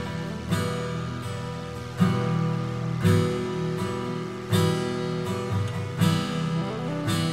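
Background music: strummed acoustic guitar chords, a new strum about every second, each left to ring.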